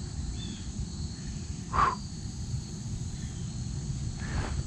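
Steady insect chirring in a marsh, broken by a short, loud sound about two seconds in and a fainter one near the end.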